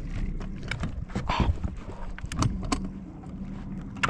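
A boat's motor running with a steady low hum, overlaid by scattered sharp clicks and knocks from tackle being handled in the boat, and a brief rush of noise about a second and a half in.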